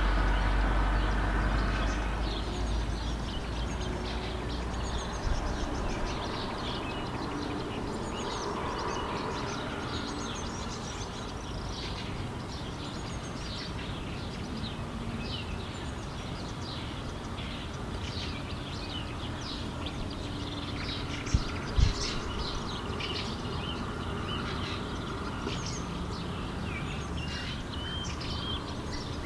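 Many small birds chirping and calling over a steady outdoor background. The low rumble of a passing train fades out over the first few seconds, and two sharp knocks come a little past the middle.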